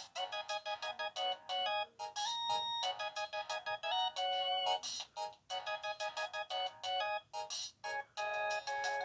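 Polyphonic ringtone playing on a Samsung SGH-Z140 mobile phone: a quick melody of short, detached synthesised notes, with no bass.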